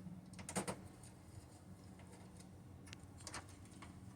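A few faint clicks and small knocks of screws and metal parts being handled while a desktop computer is taken apart, over a low steady hum.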